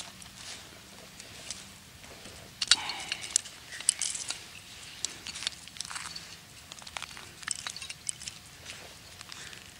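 Close handling noise on the ice: scattered light clicks and taps with rustling, thickest for a couple of seconds about three seconds in.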